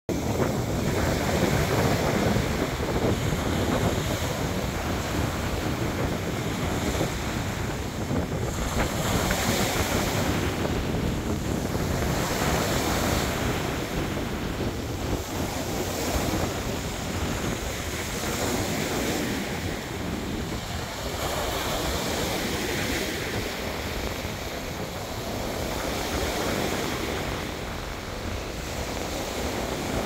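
Waves breaking and washing up a sandy beach, the hiss of surf swelling every few seconds. Strong wind buffets the microphone with a constant low rumble underneath.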